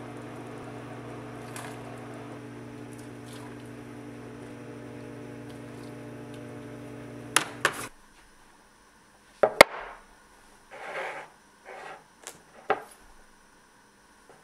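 A steady electric appliance hum that cuts off with two sharp clicks about eight seconds in. After it come a few scattered clicks and short handling and rustling noises.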